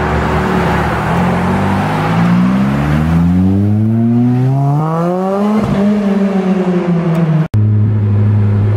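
2007 Lotus Exige S's supercharged four-cylinder engine through a loud non-stock exhaust, heard from outside as the car pulls away and accelerates, its pitch rising steadily for about five seconds and then easing down. Near the end it gives way to a steady engine note from inside the open cabin.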